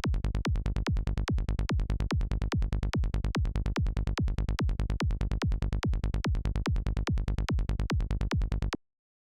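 Psytrance kick drum and synth bass loop, a BazzISM-made kick with a Sylenth1 bass, playing in a fast, even rhythm with the pitch dropping on each kick. It stops abruptly near the end.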